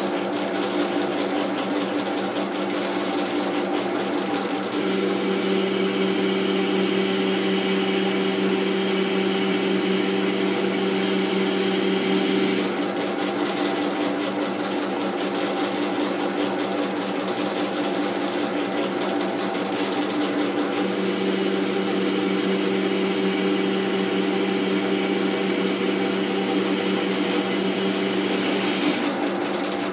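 Metal-turning lathe running steadily while the turning tool takes a cut on a large hub held in a four-jaw chuck. A set of high whining tones comes in about five seconds in, drops out near the middle, and returns for about eight seconds before stopping just before the end.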